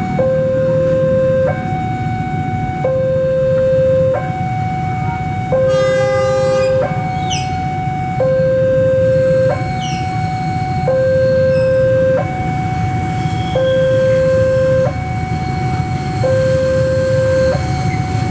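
Railway level-crossing warning alarm sounding a two-tone signal, a low note and a higher note alternating about every 1.3 s, over a low rumble from the passing train. A short horn blast sounds about 6 s in.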